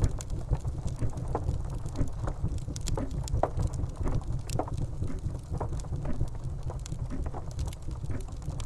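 Steady rain with a deep rumble underneath, and a grandfather clock ticking through it as sharp clicks.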